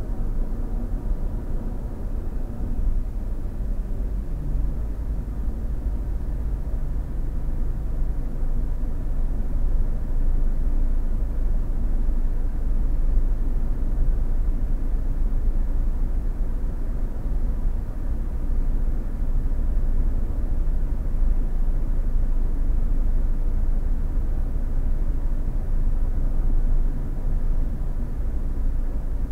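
Steady low road and engine rumble inside a car cruising at about 55 mph on a highway, picked up by a dashcam microphone.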